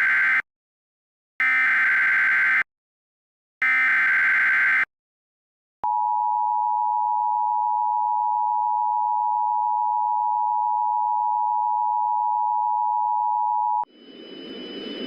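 Emergency Alert System SAME header for a severe thunderstorm warning: the end of one data burst and two more, each a short buzzy warble of digital tones about a second long, then the EAS attention signal, a steady two-tone beep held for about eight seconds before it cuts off. Near the end a hiss rises, with two high steady whistles over it.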